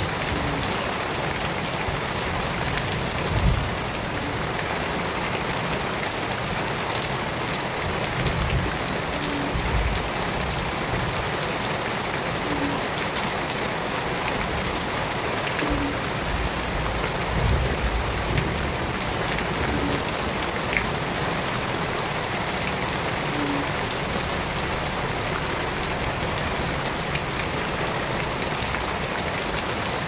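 Steady rain falling into a shallow puddle on wet ground, drops splashing on the water surface in a dense, even hiss. A few brief low rumbles rise and fade along the way.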